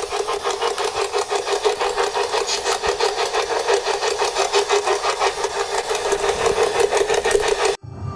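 Spirit box sweeping through radio stations, giving a steady run of rapid, evenly spaced choppy bursts of static and radio fragments. It cuts off suddenly near the end.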